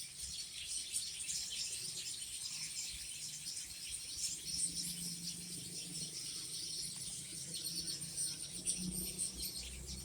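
Many small birds chirping and twittering together, a dense stream of short high chirps, over a low steady hum.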